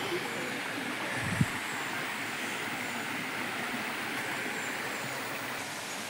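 Steady rushing noise of a rocky forest creek flowing, with a single short bump about one and a half seconds in.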